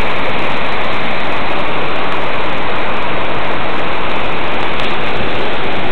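Waterfall plunging into its pool: a loud, steady rush of falling water.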